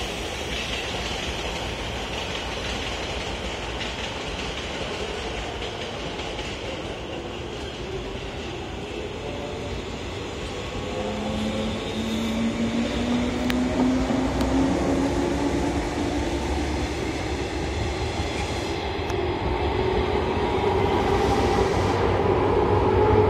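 JR 185 series electric train pulling away and passing close by, with the running noise of its wheels on the rails. From about halfway its DC traction motors give a hum that climbs steadily in pitch and grows louder as the train accelerates.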